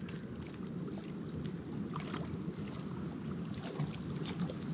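Steady low wind rumble on the microphone, with faint, irregular small splashes and ticks from a dog wading in shallow lake water.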